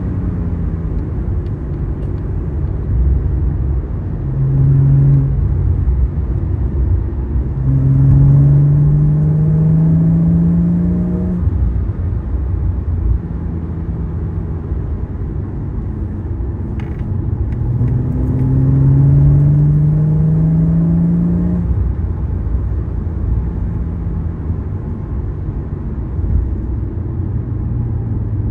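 Porsche sports car driving, heard from inside the cabin: a steady engine and road rumble. The engine pitch rises three times under acceleration, briefly about four seconds in, then in two longer pulls starting around eight and eighteen seconds in, each falling back afterwards.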